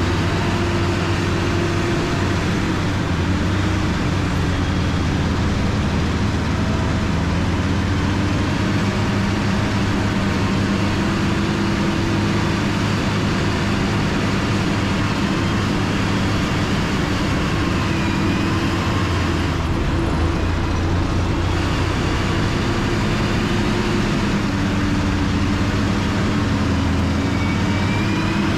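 Motor grader's diesel engine running steadily under work, its pitch drifting slightly up and down.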